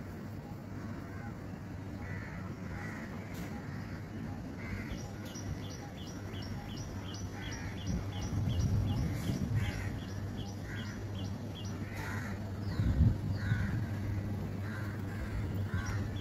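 Birds calling repeatedly in short harsh calls over a steady low traffic hum. A fast, regular, high-pitched ticking chirp runs at about three a second through the middle. A heavy truck's engine rumble swells about eight seconds in, with another low surge near thirteen seconds.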